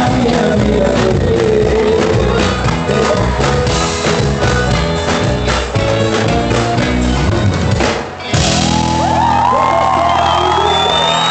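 Live sertanejo band playing amplified in a large hall, with singing and crowd shouting. About eight seconds in the drums stop and a held chord rings on under high shouting and screaming voices.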